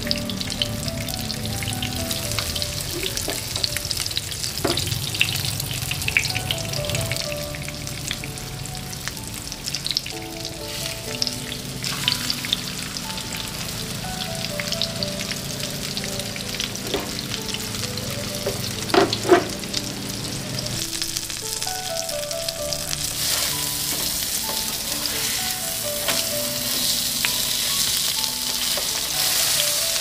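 Breaded cream dory fillets shallow-frying in hot oil in a nonstick pan: a steady crackling sizzle with spattering. A couple of sharp knocks come about two-thirds through. The sizzle grows brighter and louder over the last several seconds.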